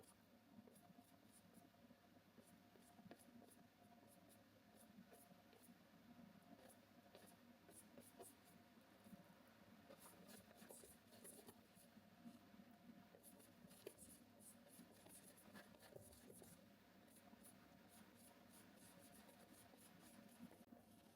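Faint scratchy strokes of a paintbrush on canvas, with frequent soft ticks, over a low room hum.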